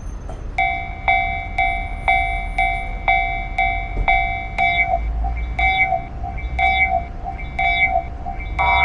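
Railroad crossing warning bell ringing its repeated 'kan-kan', about two strikes a second, each a bright two-tone ding, over a steady low rumble.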